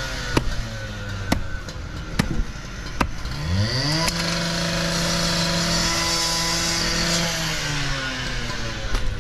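Sharp knocks of a machete cutting sod along a brick paver edge in the first few seconds, then an engine revs up about three seconds in, runs steadily for about three seconds and winds down near the end.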